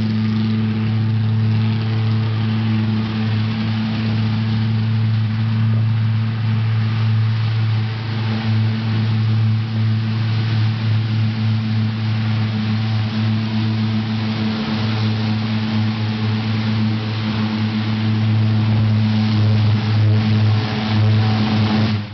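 Propane-fuelled Lockwood valveless pulse jet engine on a go-kart, running with a loud, steady low drone whose pitch does not change.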